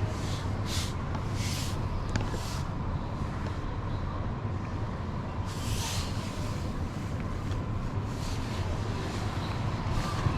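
Toyota RAV4 with a 2.0-litre inline-four petrol engine running: a steady low rumble, with short swells of hiss several times.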